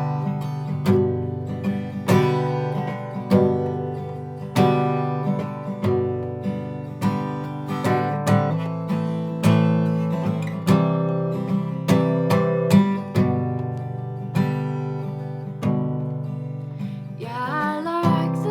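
Acoustic guitar strumming and picking a steady chord pattern, a strong stroke about once a second, in an instrumental passage of a folk song.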